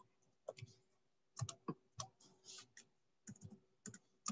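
Typing on a computer keyboard: faint, irregular keystrokes in short clusters.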